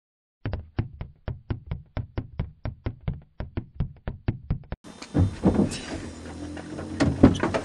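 A rapid, even run of sharp knocks, about five a second, lasting about four seconds. It stops abruptly and gives way to the muffled background of a car's interior, with a few thumps.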